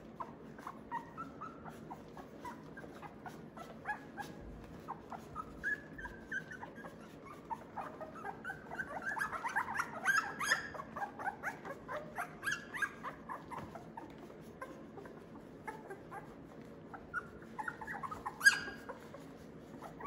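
Two-week-old Australian Labradoodle puppies squeaking and whimpering: many short, high squeals that come thickest about halfway through, with one louder, sharper squeal near the end.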